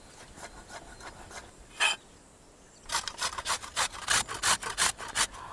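Kitchen knife chopping vegetables finely on a wooden chopping board: a single stroke, then a quick, even run of strokes about six a second through the second half.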